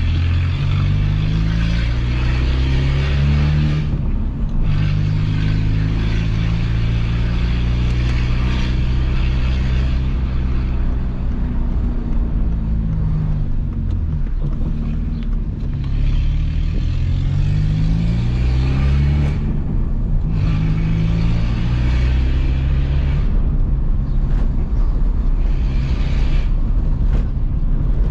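Peugeot 206 1.4's four-cylinder engine heard through a straight-through exhaust with no catalytic converter and no mufflers, accelerating hard through the gears. The note climbs with each pull and drops off at each gear change, several times over.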